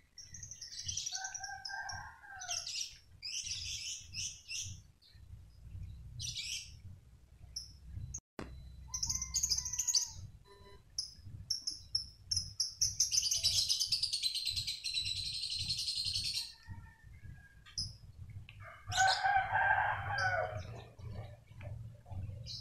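Small birds chirping and twittering on and off, with a longer burst of dense chirping in the middle. Near the end comes a rooster crowing once, for about a second and a half.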